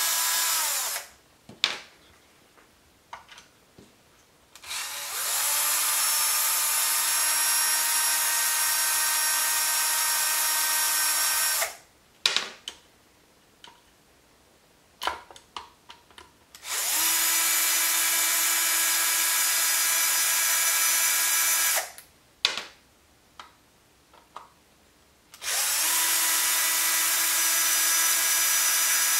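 Small power drill backing out long screws from an air pump's head: a steady motor whine that stops about a second in, then runs again three more times for several seconds each, rising in pitch briefly as it starts. Light clicks of handling fill the gaps between runs.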